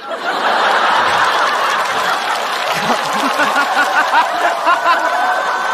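A large studio audience laughing loudly after a punchline. Many individual laughs rise out of a dense crowd sound.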